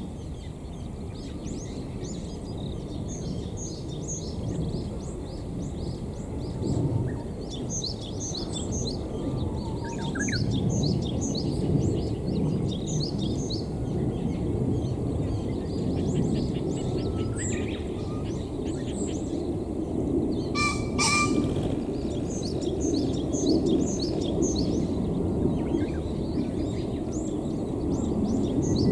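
Male green pheasant crowing once, harsh and loud, with a burst of wing-drumming (the horouchi display), about two-thirds of the way in. Small birds chirp high and continuously over a low outdoor rumble.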